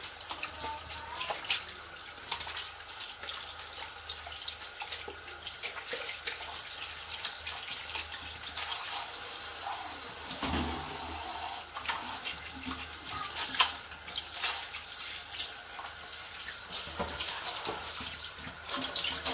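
Tap water running in a steady stream onto raw tripe in an aluminium colander, with irregular wet splashes and squelches as hands squeeze and rub the tripe under the flow.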